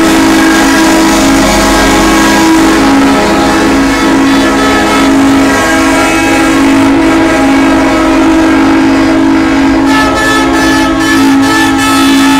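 Semi-truck air horns sounding together in one long, loud held chord of several steady tones.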